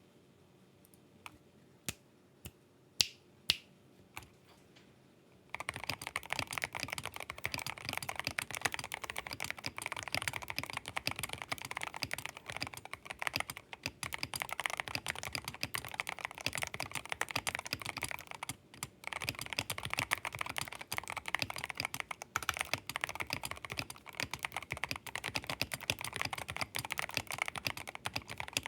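Royal Kludge RK84 mechanical keyboard with Tecsee Blue Velvet switches, PBT XDA keycaps and a foam, tempest and clipped-stabiliser mod: a few single keystrokes, then fast continuous typing from about five seconds in.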